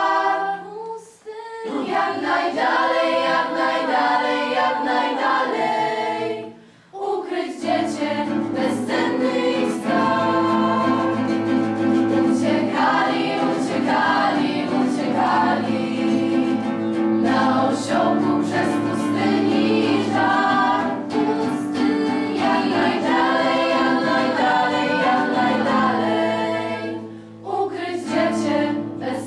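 A choir singing a Christmas carol, with held low notes underneath. The singing breaks off briefly about a second in, again after about six seconds, and once more near the end.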